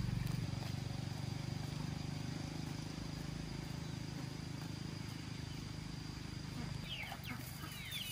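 A low, steady motor-like hum fades gradually, and near the end chickens start clucking with short high chirping calls.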